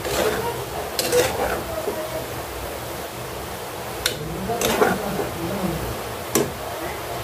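A spatula scraping and knocking against a pan as semai vermicelli cooked in ghee is stirred: a handful of separate strokes over a steady low hum.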